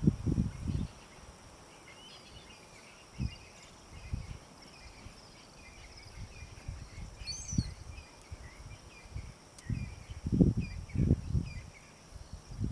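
Bush ambience: small birds chirping repeatedly and a steady high insect drone, broken by several loud low rumbles and thumps, the strongest a cluster near the end.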